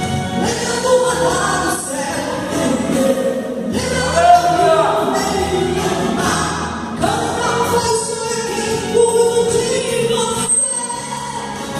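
A gospel song sung over continuous accompaniment, with sung voices that sound choir-like.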